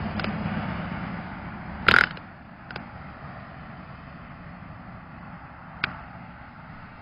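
Mobile phone handling noise: one loud knock about two seconds in and two fainter clicks later, over a steady outdoor hiss.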